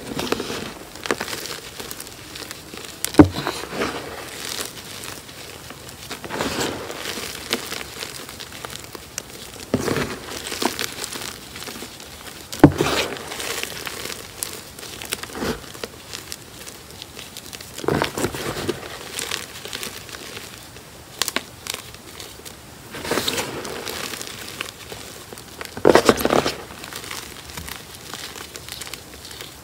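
Hands crushing and squeezing crumbled gym chalk chunks and powder: irregular soft crunching and crumbling, with a few sharper crunches, the loudest about three seconds in, near the middle and near the end.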